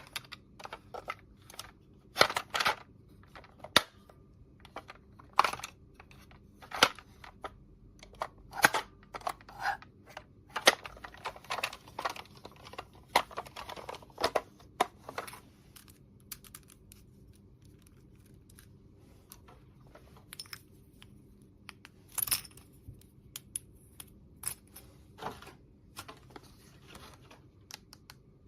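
Small plastic toy pieces being handled: irregular clicks and taps as parts are picked up, snapped and set down, with a stretch of rustling and scraping in the middle.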